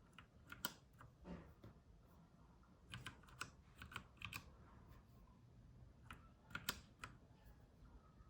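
Royal Kludge RK84 mechanical keyboard with brown switches: single keys pressed in small, separate groups of clicks rather than continuous typing, as when stepping through the backlight modes with key combinations.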